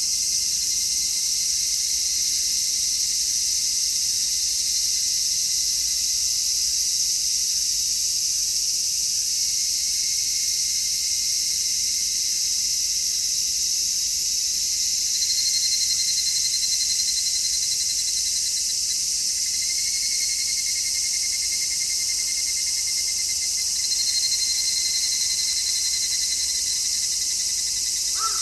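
A steady, dense chorus of summer cicadas calling. Individual pulsing calls stand out above the drone around the middle and again near the end.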